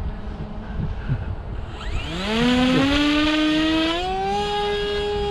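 Wind on the microphone, then about two seconds in the electric motor and propeller of a 3D-printed V-turn flying wing spin up with a rising whine on a hand launch. The whine steps up in pitch once more and holds steady as the plane climbs away.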